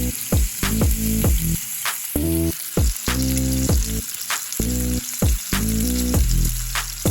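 Steak sizzling in an iron frying pan over a campfire, a steady hiss, under background music with short repeated pitched notes.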